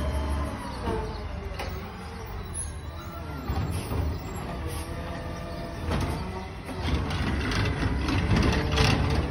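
Garbage truck driving off, its diesel engine revving up and down as it pulls away, with a few sharp knocks along the way.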